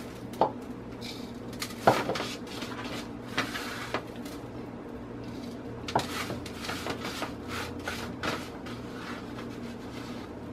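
A hand scrapes and scoops dry ground seasoning across a metal baking sheet into a small blender cup, with scattered light clicks and knocks of the cup against the tray, the strongest about two seconds in. A steady low hum runs underneath.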